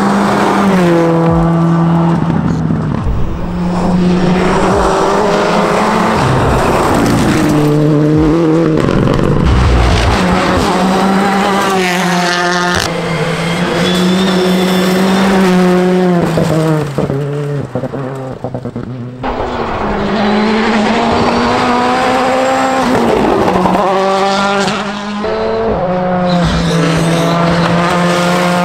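Rally car engines revving hard through gear changes, pitch climbing and dropping again and again, with tyre squeal, as cars pass one after another.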